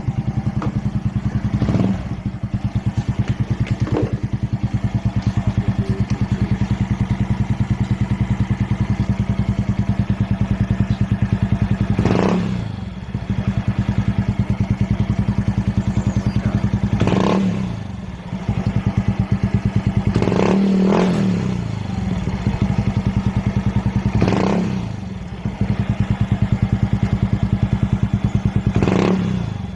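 Yamaha Mio scooter's single-cylinder four-stroke engine idling through an aftermarket racing exhaust, blipped several times with short throttle revs that fall back to idle.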